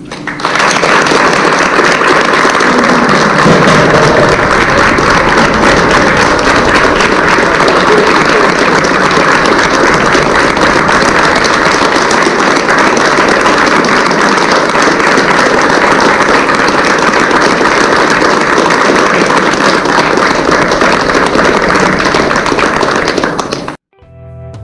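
An audience applauding in a long, steady burst of clapping that cuts off abruptly near the end.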